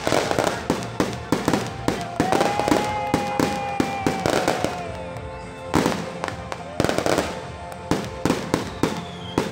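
Aerial fireworks display: a rapid, irregular string of bangs and crackles as shells burst overhead, thinning briefly a little past the middle before the bursts pick up again.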